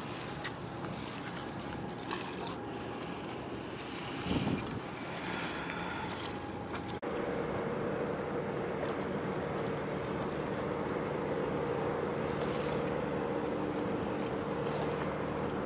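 A boat's engine running under wind and water noise, with a gust of wind on the microphone about four seconds in. About seven seconds in the sound cuts abruptly to a louder, steady engine drone with a low hum.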